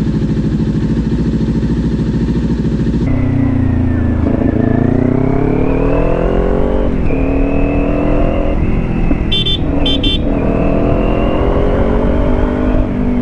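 Kawasaki Ninja 400 parallel-twin engine running under way, its note rising and falling with the throttle. Two short high beeps sound about nine and ten seconds in.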